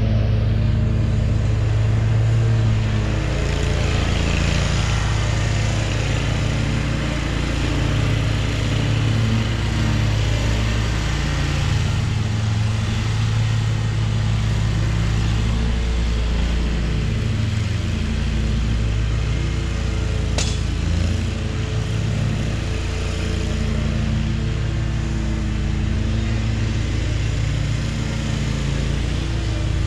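Hustler zero-turn riding mower engine running steadily while mowing, its pitch shifting a little now and then as it works. A single sharp click about two-thirds of the way through.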